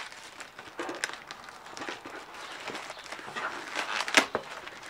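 Black plastic shipping bag rustling and crinkling as a shoebox is worked out of it, with a sharper crackle about four seconds in.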